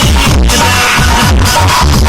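Loud electronic dance music with a heavy, repeating bass beat, played through a DJ sound system.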